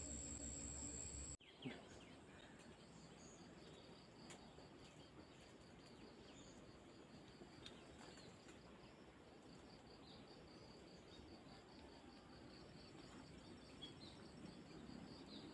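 Faint night insect chorus: an even, rapidly pulsed high chirping over soft background hiss. It follows a steady hum with a high whine that cuts off abruptly about a second and a half in.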